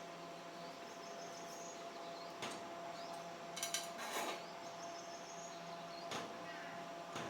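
Scattered light clicks and clinks, about six, some in a quick cluster a little past the middle, over a steady faint hum, as of tools and small parts being handled.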